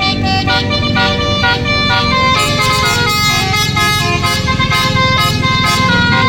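Telolet basuri musical horn on a bus playing a quick melody of stepped, held notes, over a low rumble.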